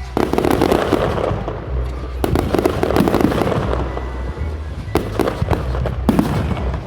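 Fireworks going off: repeated bursts of crackling shells, the first right at the start and more about two, five and six seconds in.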